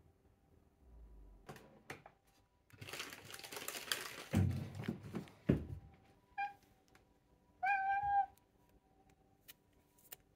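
A rustle and two dull thumps, then a domestic cat meows twice, a short meow followed by a longer one, while a cat treat is being readied. Light clicks are scattered throughout.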